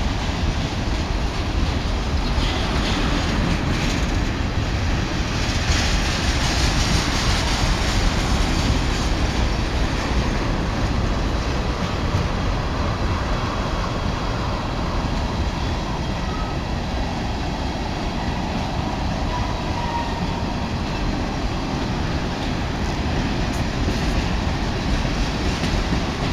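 Freight train of ethanol tank cars rolling past, steel wheels running on the rails with a steady low rumble.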